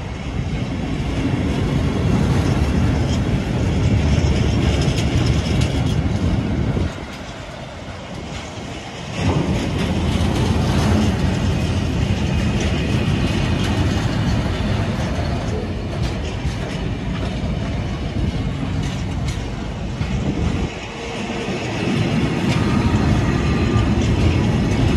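Freight train of bogie tank wagons passing close by: a steady rumble and clatter of steel wheels on the rails. It goes briefly quieter twice, once for about two seconds about a third of the way in and again shortly before the end.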